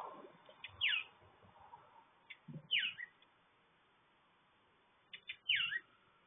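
A bird calling at the feeder: three short calls that slide down in pitch, about two seconds apart, each preceded by faint clicks, with a few dull low knocks in between.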